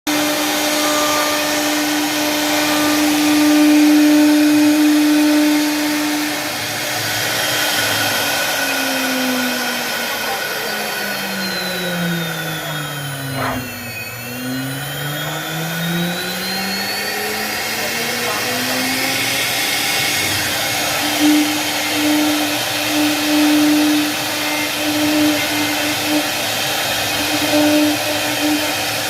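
CNC machine running with a steady motor whine. Its motor pitch drops to a low about halfway through and climbs back up, and near the end the whine comes and goes in short pulses.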